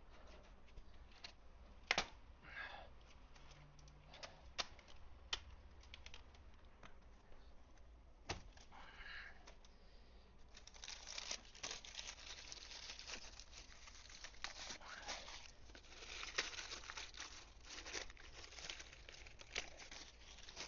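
Packaging being pulled and torn off a newly unboxed e-bike: scattered light clicks and knocks at first, then denser crinkling and tearing from about halfway.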